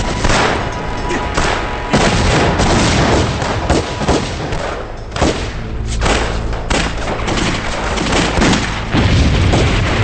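Battle sound effects from a war drama: repeated explosions and rifle fire in quick succession, with dramatic background music underneath.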